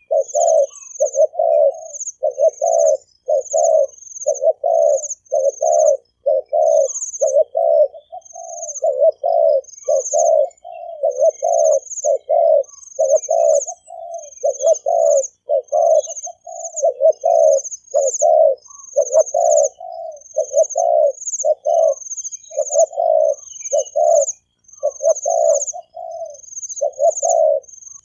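Spotted dove cooing in a quick, nearly unbroken run of short low coos, the 'thổ kim' call style used as a lure to draw in wild doves. A high, thin chirping repeats about once a second over the top.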